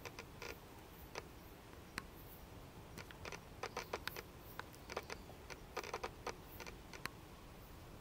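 Irregular light taps and clicks close to the microphone, bunched into two quick flurries in the middle, over a faint steady hiss.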